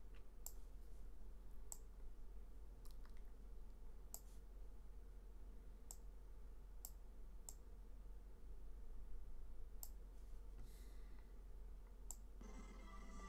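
Faint computer mouse clicks, about nine at irregular intervals, over a low steady hum. Near the end a pitched sound starts up.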